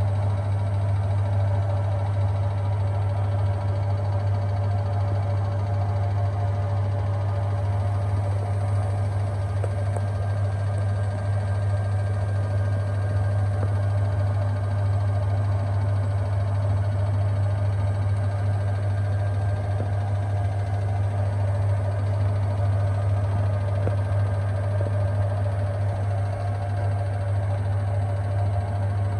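Washing machines on an 800 rpm spin, running with a steady low hum that holds constant throughout.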